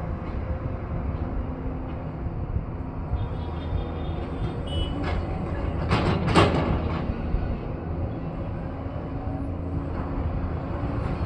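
Diesel engine of a heavy earthmoving machine running steadily, with a louder harsh burst of machine noise lasting about a second midway through.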